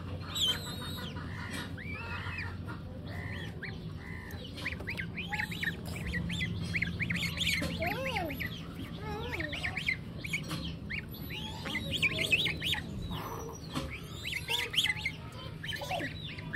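Young goslings peeping: many short, high-pitched peeps in quick runs that grow busier from about five seconds in, with a few lower calls around the middle.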